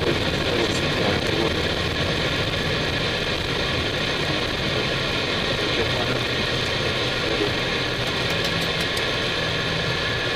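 Steady cockpit noise of an Airbus A319: an even rumble of engines and airflow under several steady whining tones, with a few faint ticks near the end.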